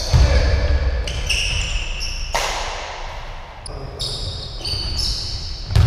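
Basketball play on a hardwood gym floor: sneakers squeak in many short, high squeals and the ball bounces, with a sharp knock a couple of seconds in.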